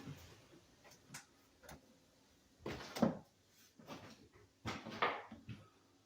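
Scattered light knocks and short scrapes of hand tools during drywall finishing work, irregular, with the loudest about three seconds in and again around five seconds.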